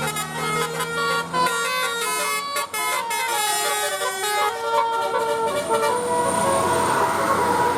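Bus 'telolet' multi-tone horn playing a quick tune of stepping notes for about six seconds, then a steady noisy rush takes over.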